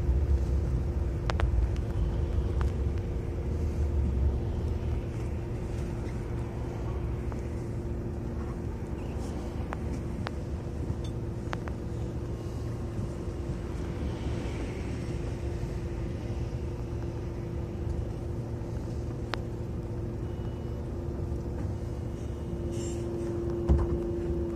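City bus engine heard from inside the cabin: a steady low rumble with a faint steady hum. It eases off about four seconds in as the bus comes to a stop, then idles evenly, with a few faint clicks.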